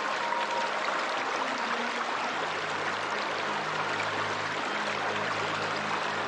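Running water of a stream or river, a steady rush. Low held tones come in faintly about halfway through.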